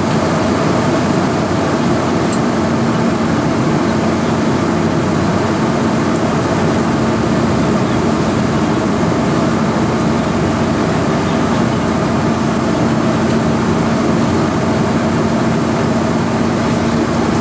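Steady in-flight cabin noise of a Boeing 747 heard from inside the passenger cabin: the even rush of engines and airflow, with a steady low hum underneath.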